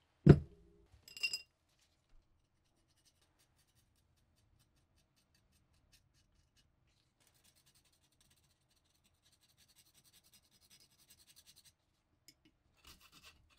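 A heavy rusted axe head set down on a paper-covered bench with a thump, followed by a light metallic clink with a brief ringing note. Then a thin metal pick scratches faintly across the axe head's rough, pitted rust.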